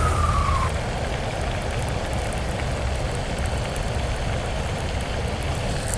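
Baitcasting reel spool whirring as line pays out on a cast. Its whine slides down in pitch and stops under a second in. After that comes a steady hiss with a low rumble.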